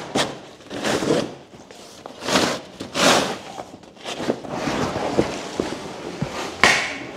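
A series of irregular rustles and scrapes with a few light knocks: a cardboard motorcycle shipping box being handled and opened.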